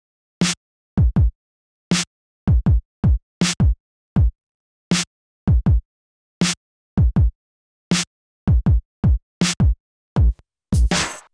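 Electronic backing music: a sparse drum-machine beat of deep kick hits that drop in pitch, with silence between them. A fuller beat with cymbal hiss comes in near the end.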